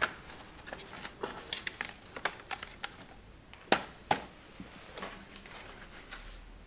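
Scattered light clicks, knocks and rustles of objects being handled and set in place, with two sharper knocks a little after the middle.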